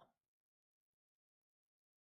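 Near silence: a digital pause with no sound.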